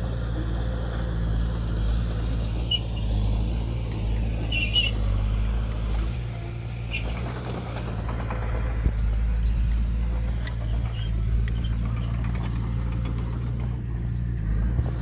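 Diesel engine of earthmoving machinery running steadily with a deep hum, with a few short high squeaks over it.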